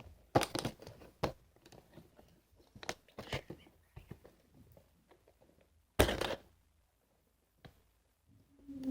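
Packing tape and cardboard packaging being worked at by hand and with scissors: scattered small clicks and rustles, and one short loud rip about six seconds in as a piece of tape is pulled off.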